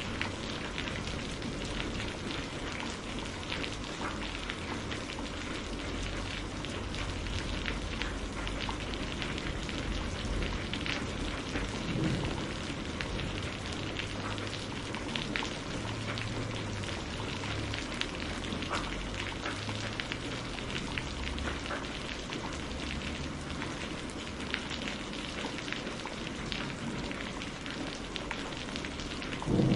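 Steady rain falling on a greenhouse, an even hiss with many individual drops ticking close by and a faint low rumble underneath. Right at the end a roll of thunder begins.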